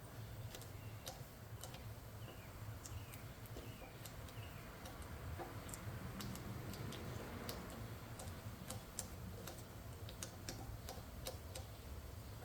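Faint scattered light clicks and ticks, irregularly spaced, over a steady low hum.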